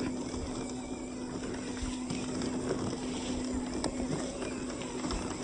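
Radio-controlled 4x4 off-road truck running, its motor giving a steady hum under scattered clicks and knocks from the truck working over rough ground.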